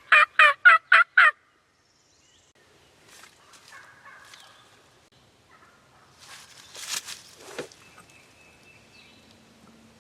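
Wild turkey tom gobbling: a loud, rapid rattling run of notes that ends about a second in. Fainter scattered noises follow, the loudest about seven seconds in.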